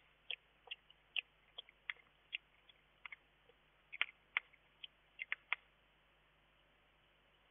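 A hedgehog making a faint, irregular run of short sharp clicks, about a dozen and a half in five seconds, which stop about five and a half seconds in.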